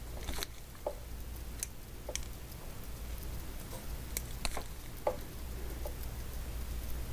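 Scattered small clicks and light taps from hand tools and wire being handled, about a dozen spread irregularly, over a low steady hum.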